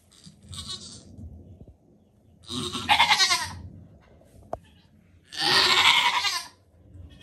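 A goat bleating twice, two loud wavering calls of about a second each, a couple of seconds apart, with a fainter call just before them.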